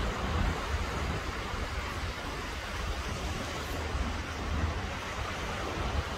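Small waves washing onto a sandy beach in a steady hiss, with wind buffeting the microphone in an uneven low rumble.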